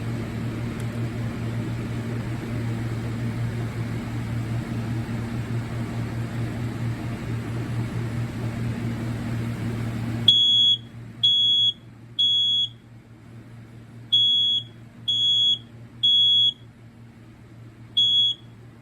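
A steady low hum with hiss runs for about ten seconds and then cuts off suddenly. A BRK 4120B hardwired smoke alarm then sounds in the three-beep fire pattern: two groups of three high-pitched beeps and the first beep of a third group. It has been set off through the interconnect wire by a BRK CO5120B carbon monoxide alarm.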